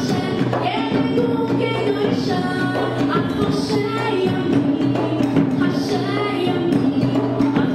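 Music with singing over a steady beat and bass line.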